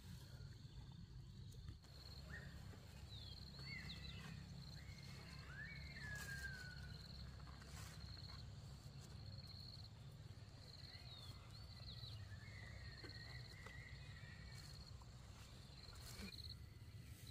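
Faint countryside ambience: an insect's repeated pulsing buzz and a few short bird calls with gliding whistles, over a steady low rumble.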